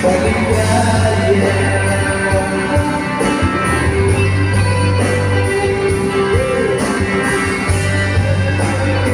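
Rock band playing live through a PA: electric guitars, bass guitar and drum kit, with a held lead note that bends up and back about six seconds in.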